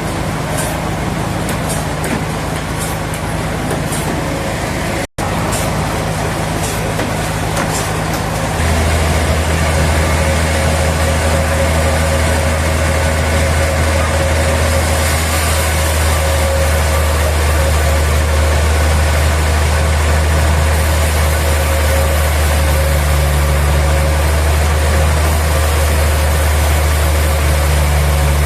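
Heavy sawmill machinery running steadily, a constant engine-like drone. It cuts out for an instant about five seconds in, and a louder, deeper drone takes over about eight seconds in and holds steady.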